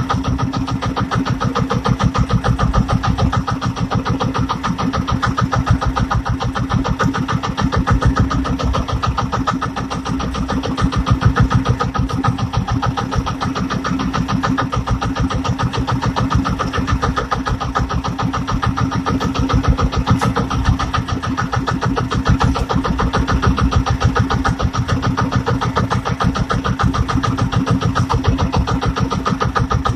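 Inboard engine of a motorized outrigger fishing boat (bangka), running steadily with a rapid, even chugging pulse.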